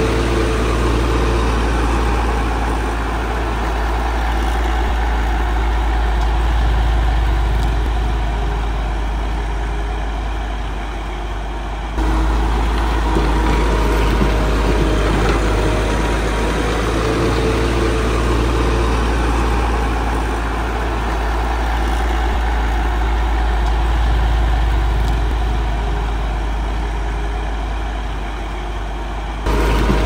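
Heavy diesel engine of earthmoving road-building machinery running steadily, swelling and easing slightly in loudness. The sound jumps abruptly about twelve seconds in and again near the end.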